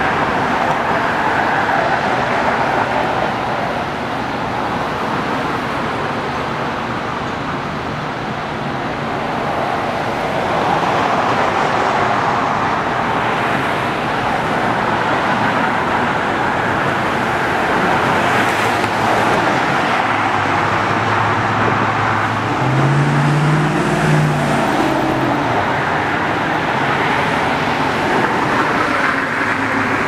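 Steady road traffic noise. About two-thirds of the way through, an engine's note rises in pitch for a few seconds as a vehicle accelerates.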